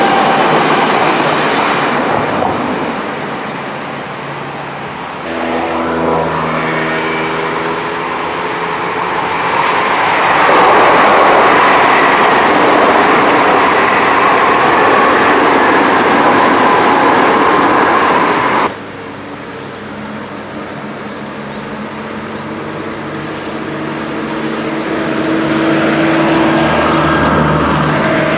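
Electric commuter trains passing on the line: a steady roar of wheels on rails that cuts off suddenly after about two thirds of the time, with a steady, pitched motor hum as a train comes and goes.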